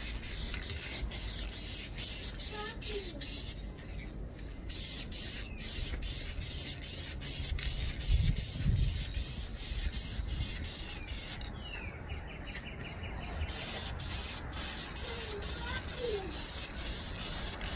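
Duplicolor Perfect Match aerosol paint can spraying a heavy final colour coat: a steady hiss that stops twice, briefly, as the nozzle is released. A short low rumble about halfway through is the loudest moment.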